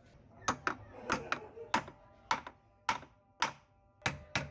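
Steel hammer driving nails into a softwood block: about ten sharp blows at an uneven pace, some leaving a short metallic ring.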